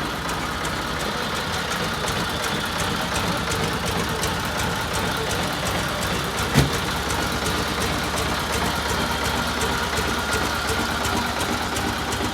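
Ford 1210 compact tractor's diesel engine idling steadily with a fast, even clatter, and one sharp knock about halfway through.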